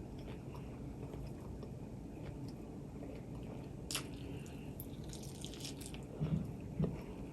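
A person chewing and biting food close to the microphone, with scattered wet mouth clicks and crackles. A sharp click comes about four seconds in, and two soft thumps come near the end.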